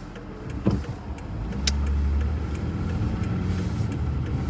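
Car engine pulling away and gaining speed, its low rumble growing louder about a second in, heard from inside the cabin. A dull knock and a sharp click come within the first two seconds.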